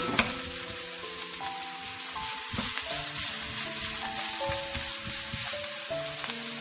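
Chopped garlic and onion sizzling as they fry in hot oil in a pan, with a couple of sharp clicks from a stirring spoon near the start.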